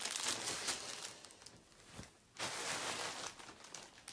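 Clear plastic wrapping crinkling and cloth rustling as garments are handled, dying down to a short lull about two seconds in, then rustling again.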